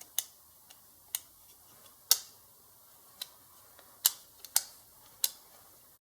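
Irregular sharp metallic clicks and taps, about nine in six seconds, some with a brief ring, from metal parts of a car trunk lock being handled and worked on. The sound cuts off abruptly near the end.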